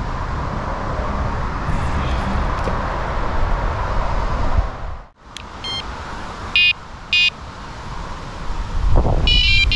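Wind buffeting the microphone with the hiss of rain for about five seconds, then it cuts off suddenly. After that come a few short, high electronic beeps and a longer run of beeping near the end.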